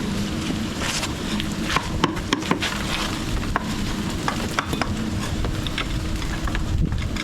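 Hand tools scraping and clinking against broken flagstone and rubble around a drain gully, with irregular sharp knocks.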